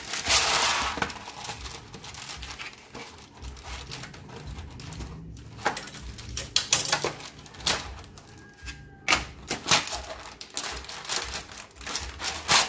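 Parchment paper rustling as it is handled on a metal baking sheet and trimmed with kitchen shears, with a run of sharp clicks and snips through the second half.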